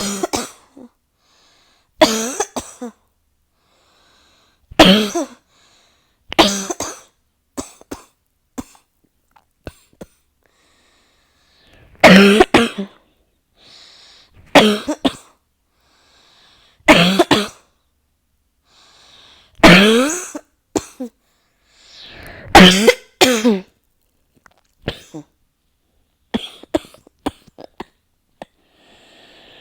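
A person coughing over and over in a coughing fit: loud, harsh coughs singly or in quick clusters of two or three every couple of seconds, with smaller coughs and faint breaths between.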